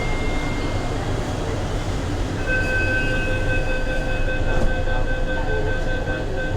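Mumbai Metro train running, heard from inside the coach as a steady rumble. About two and a half seconds in, a steady whine of several tones comes in and holds.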